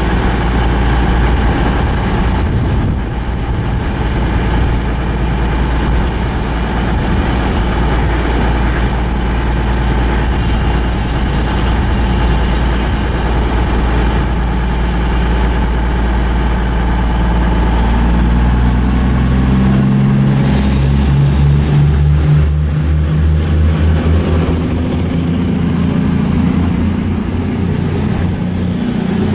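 Diesel train engine running with a deep, steady rumble. About twenty seconds in, the note changes to a clearer pitched engine throb, and a faint high whine rises near the end.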